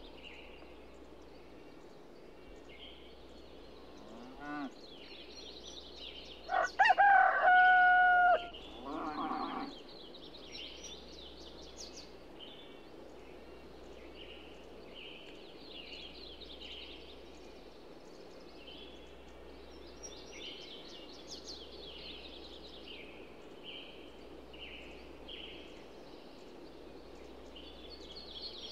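Small birds chirping on and off over steady low background noise, with a rooster crowing once about seven seconds in: a few short notes and then one long held note, the loudest sound. A shorter, lower call follows right after.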